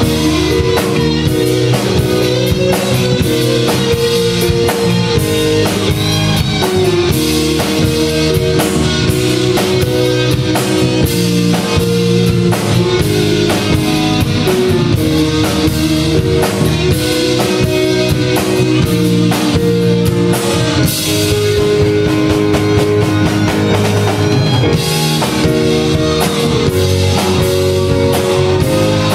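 Live rock band playing an instrumental passage: drum kit keeping the beat under electric guitars, bass guitar and keyboards holding sustained notes.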